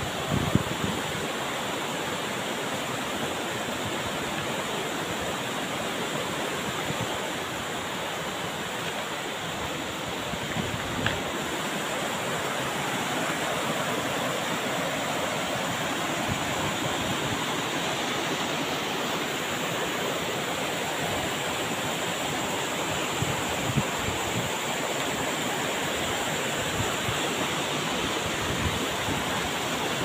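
Mountain stream rushing over boulders, with a waterfall pouring behind it: a steady, even rush of white water.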